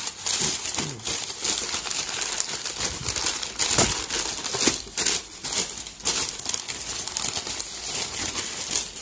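Brown kraft packing paper crumpled and rustled by hand in an irregular crackle, with an occasional thump about four seconds in.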